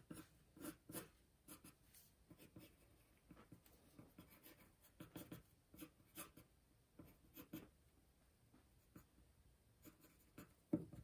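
Pencil sketching on paper: faint, short scratching strokes coming irregularly, with brief pauses between them.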